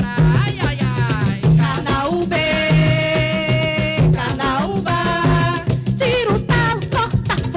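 Live coco de roda music: a voice sings over a steady drum beat and a shaker, holding one long note around the middle.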